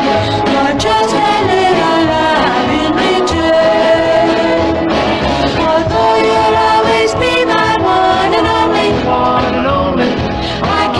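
Doo-wop vocal group song: voices singing in harmony, holding and sliding between long notes, over instrumental backing.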